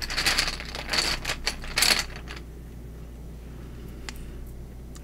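A deck of cards being shuffled by hand: a quick run of papery clicks and flutters for about two seconds, then it stops, with one faint click near the end.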